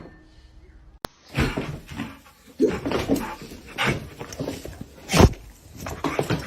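A dog whining and crying in short, irregular calls, starting about a second in, with one louder, sharper cry a little after five seconds.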